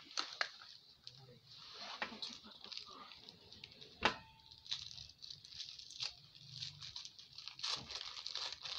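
Paper rustling and crinkling as a folded sheet is handled, with scattered light taps and rubbing from a rubber balloon being held, and one sharper click about four seconds in.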